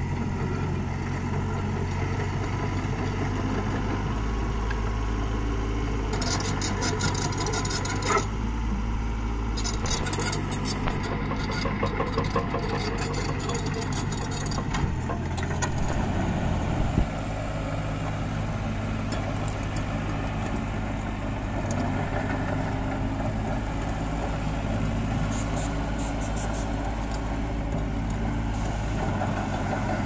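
Yanmar 3T84 three-cylinder diesel of a Yanmar YTB1400 mini excavator running steadily as the machine works, with stretches of rattling and knocking in the first half.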